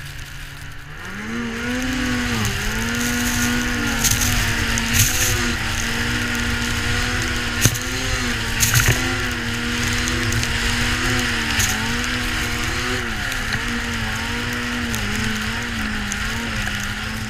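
Ski-Doo 800 two-stroke snowmobile engine running under way. It picks up as the throttle opens about a second in, then holds a steady note with small rises and dips. A few sharp knocks come from the sled over the bumpy snow.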